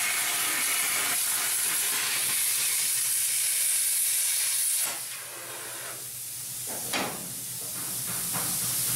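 Hypertherm Powermax45 plasma torch cutting through the sheet-steel quarter panel of a 1967 Pontiac Firebird, a loud steady hiss. The arc stops about five seconds in, leaving a quieter hiss, with a short knock about seven seconds in.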